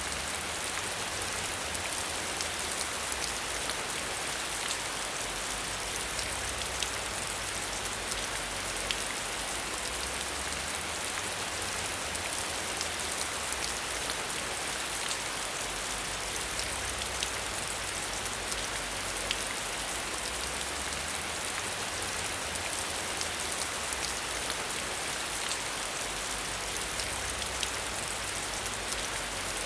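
Steady rain falling, with scattered sharp ticks of single drops; a low rumble underneath swells and fades.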